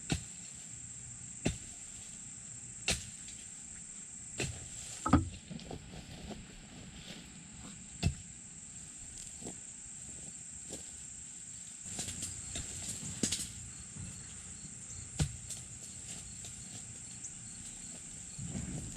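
Scattered, irregular sharp pops and knocks, the loudest about five seconds in, over a steady high-pitched insect drone.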